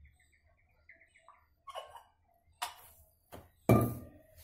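Mustard oil poured from a steel container into a plastic bowl, with a few light knocks and one sharp clunk near the end as the steel vessel is handled and set down. A faint run of high chirps sounds in the first second.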